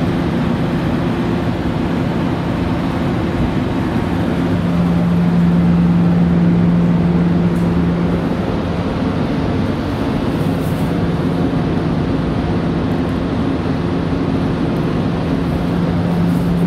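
Steady mechanical drone with a constant low hum that gets louder about five seconds in and again near the end.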